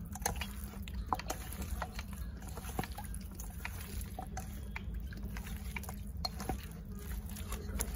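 Raw chicken pieces coated in turmeric being turned and squeezed by hand in a steel bowl: wet squelching with many small scattered clicks.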